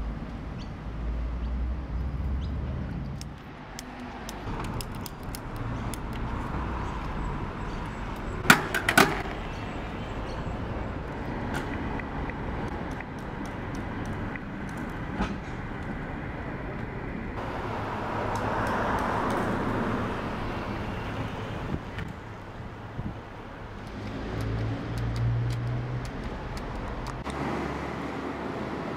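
Outdoor street sound with road traffic: a steady wash of passing cars, with a few sharp clicks about eight to nine seconds in.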